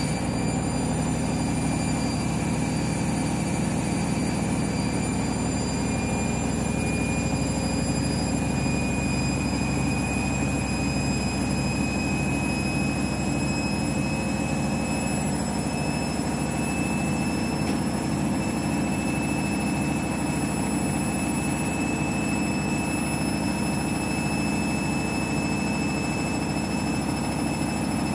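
Overloaded front-loading washing machine on its final spin: a steady drum rumble under a motor whine that climbs slowly in pitch as the drum gathers speed.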